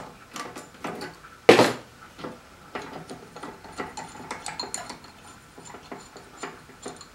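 Light metallic clicks and clinks of hand-work on a small-engine carburetor, locking pliers clamped on the fuel line and the float bowl being worked off, with one louder clank about one and a half seconds in.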